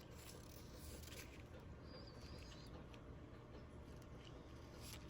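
Near silence: faint room tone with a few light ticks.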